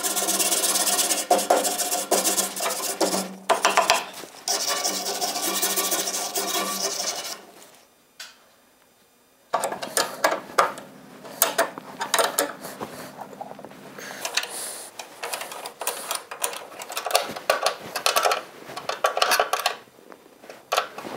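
A hand file rasping on a wrought-iron wagon brace in repeated strokes. It stops for about a second and a half around eight seconds in, then goes on in shorter, uneven strokes.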